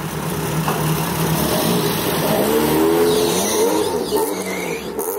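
Race-prepared hatchback's engine running at a steady low speed, then revved in several short rises and falls in pitch as the car pulls away at walking pace.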